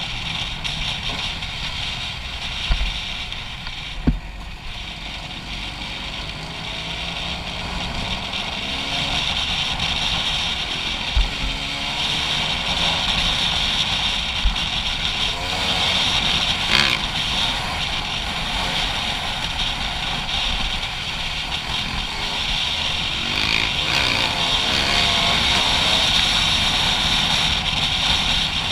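Dirt bike engine under way, its pitch rising and falling as the rider accelerates and eases off, with a steady rush of wind over the camera microphone. A few short knocks, a couple of them within the first five seconds and two more around the middle.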